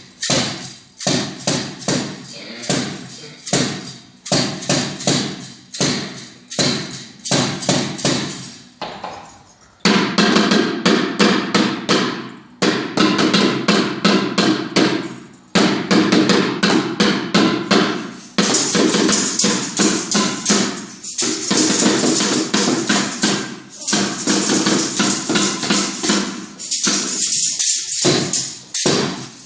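Music with a steady percussive beat of about three strokes a second. It gets louder and fuller about ten seconds in, and a bright, jangling high layer joins after about eighteen seconds.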